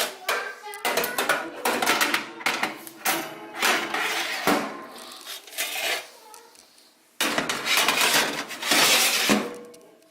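Metal rack, pan and basket of an air fryer toaster oven clattering and scraping as they are handled and set into the oven. Irregular knocks, with a sudden louder stretch of clatter about two-thirds of the way in.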